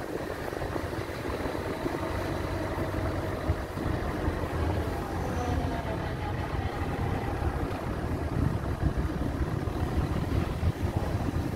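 Car driving through town: a steady low rumble of engine and road noise, with a faint engine note wavering in pitch in the middle.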